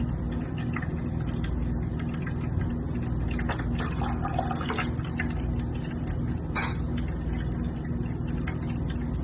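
A cat sneezes once, a short sharp burst about six and a half seconds in, over a steady background hiss and low hum.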